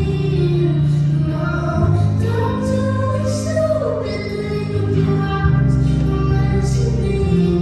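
A woman singing live with instrumental accompaniment. Long held bass notes change every second or two under a sustained, bending vocal line.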